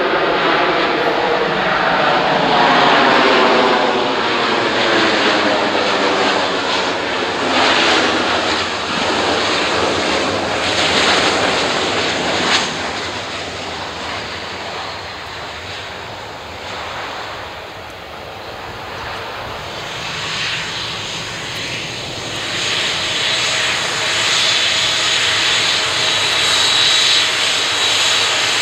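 Boeing 737 jet engines running loud just after touchdown, with a sweeping, phasing sound as the airliner rolls past, then fading over the landing rollout. Another 737's engines rise again in the second half, ending in a steady high whine as it taxis.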